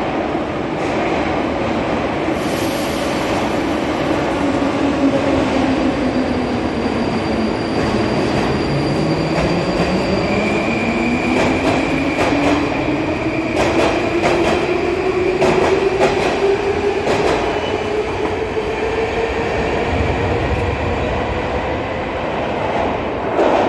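81-726.1 "Baltiets" metro train departing and accelerating away: its traction drive whine climbs steadily in pitch as it picks up speed, over a steady rumble of wheels on rail. In the middle the wheels clack several times over rail joints.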